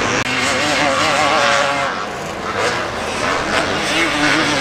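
Motocross dirt bikes racing on the track, their engines revving up and down in quick surges as the riders work the throttle.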